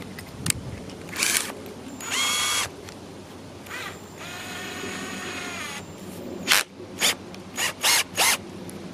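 Ryobi 18V ONE+ cordless drill triggered in a string of short bursts, its motor spinning up and stopping each time. There is a longer, quieter run of about two seconds in the middle. The bit is spinning free, not yet in the wood.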